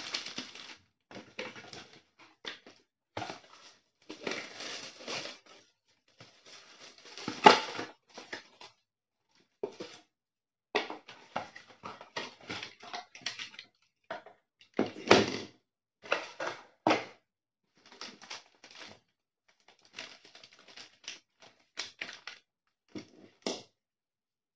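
Hands unpacking a box: paper packaging rustling and crinkling and a cardboard insert being handled, in irregular bursts with a few louder crackles and knocks. Near the end, small plastic attachments are handled.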